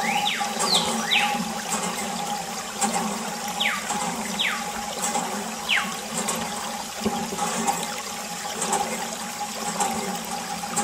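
A thin stream of water from a small tube pours and splashes onto a sand-covered toy tractor, a steady rushing hiss. A high whistle slides downward every second or two, over a steady low hum.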